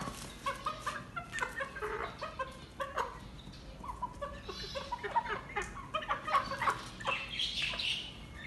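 Chickens clucking in many short, quick notes as they gather to peck at crumbled roti.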